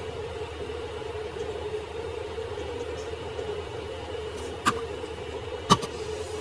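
Steady low hum of room and microphone noise, with two sharp computer keyboard keystrokes about a second apart near the end as text is corrected.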